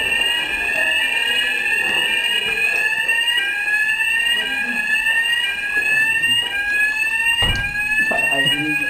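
Building fire alarm sounder giving a rising, sweeping tone that repeats over and over, each sweep lasting well under a second. There is a single knock about seven and a half seconds in.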